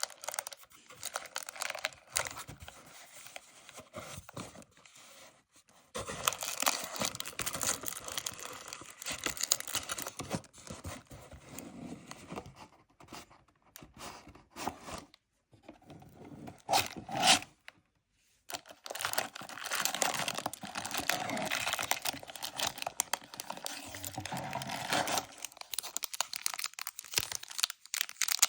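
Packaging from a Pokémon card Elite Trainer Box being torn open and crinkled by hand. It comes in stretches with short pauses, and there is a brief louder crackle about seventeen seconds in.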